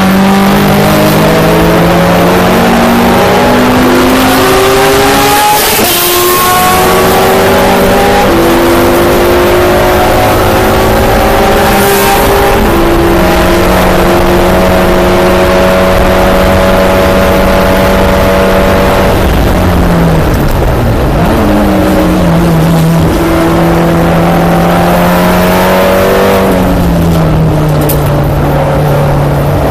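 In-car sound of a Volkswagen GLI touring race car's turbocharged four-cylinder engine at racing speed: revs climb through several upshifts, hold steady at high revs, then fall with a quick blip as it brakes and downshifts, and pick up again near the end. Wind and road noise run underneath.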